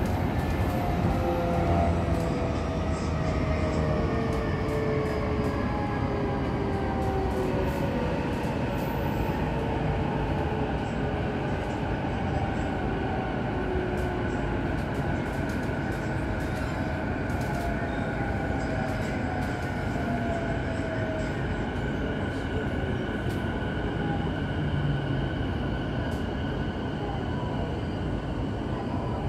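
Interior running sound of a JR East E233 series electric train slowing for a station. The traction motor whine falls steadily in pitch as the train brakes, over a steady rumble of wheels on rail.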